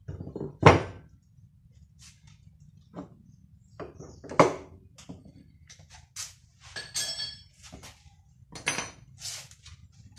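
Metal parts handled on a wooden workbench while an electric motor is being taken apart. A loud knock comes just under a second in as a cast aluminium end cover is set down, and another knock comes a little before halfway. Scattered clinks follow, one of them ringing like metal, and there are more knocks near the end.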